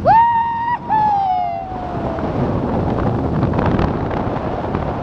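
Wind rushing over a skydiver's helmet-camera microphone during the descent, with a high whooping call at the start that rises, holds briefly, then glides down in a long falling tone.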